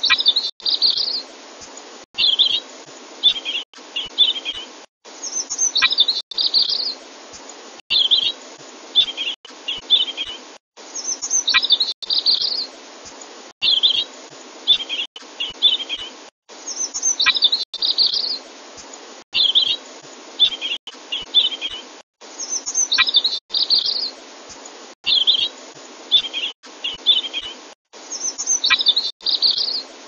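Looped birdsong training track: short spliced clips of munia (emprit) chirps and red-billed leiothrix (Pekin robin) song phrases. Each clip is cut off by a brief silent gap, and a louder run of high, falling chirps comes back about every six seconds over a steady hiss.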